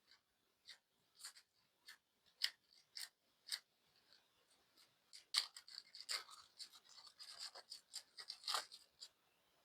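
Clay packaging being handled and opened: scattered crisp clicks and rustles, thickening into denser crinkling and scratching from about five seconds in to near the end.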